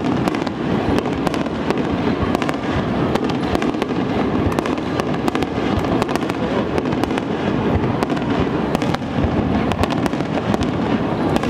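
Aerial fireworks display: a dense, unbroken barrage of shell bursts and crackling stars, many sharp cracks and bangs following one another closely throughout.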